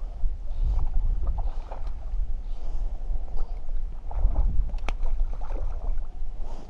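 Wind buffeting the microphone in a steady rumble, with short splashes from a hooked trout at the water's surface, most of them about four to five seconds in.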